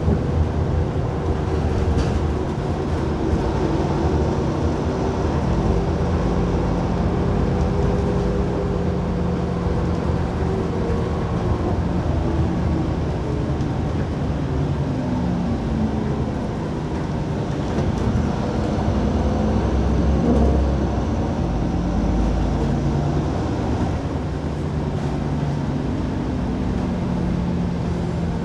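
City bus engine and road noise from inside the cabin during a ride. The engine note steps up and down in pitch as the bus changes speed.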